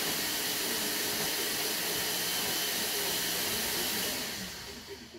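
Countertop blender running steadily on the seasoning mix, then winding down about four seconds in.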